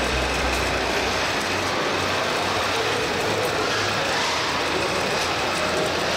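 Steady mechanical rumble and clatter of RC model trucks and construction machines running, with the tail of background music dying away in the first second.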